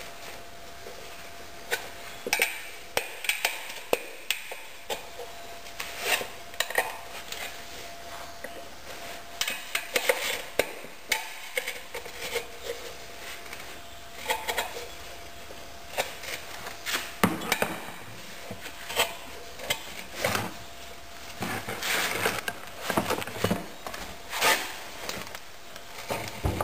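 Tire irons or screwdrivers clinking and knocking against a dirt bike's wheel rim while prying the rear tire's bead off by hand: irregular sharp metallic clicks, some in quick clusters.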